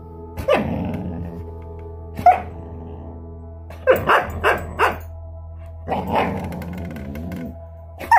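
Lycan Shepherd puppies growling and barking at each other, the grumbling 'talk' of a puppy refusing to give up a horn chew to her sister. It comes in separate bursts: a growl about half a second in, a short yip around two seconds, a quick run of four short barks around four seconds, and a longer drawn-out grumble near the end, over steady background music.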